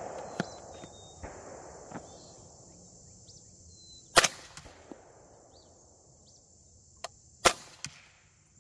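Two sharp suppressed gunshots about three seconds apart, each with a short echo, among a few fainter pops.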